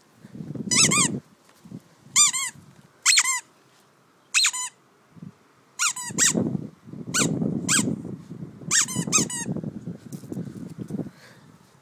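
Green rubber squeaky toy squeaked again and again: short, arched squeaks, often in quick pairs, a dozen or more in all. A low, rough scuffling noise runs under the later squeaks.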